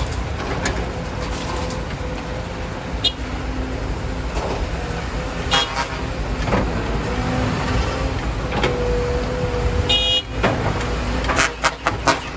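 Heavy diesel engines of excavators and trucks running with a steady low rumble and a faint steady whine. Sharp clanks cut through it, some ringing briefly: about five to six seconds in, around ten seconds, and several near the end.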